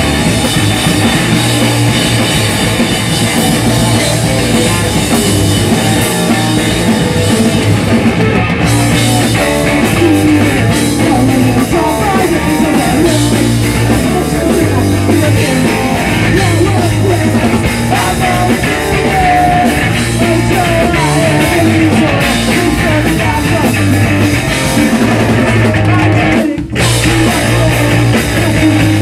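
Punk rock band playing live, loud and dense, with electric guitar and a drum kit, and a brief stop in the playing near the end.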